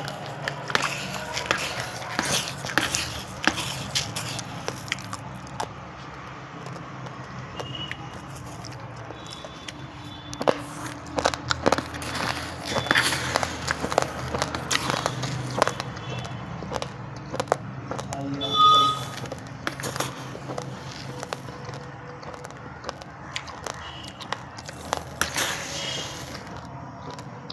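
Raw, uncooked basmati rice grains being crunched between the teeth: irregular crisp cracks and crackles, now sparse, now in quick runs. A short pitched sound with several evenly spaced tones cuts in about 19 seconds in.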